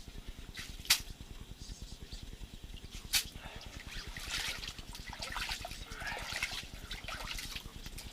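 Two sharp knocks about two seconds apart, then a few seconds of water splashing and trickling.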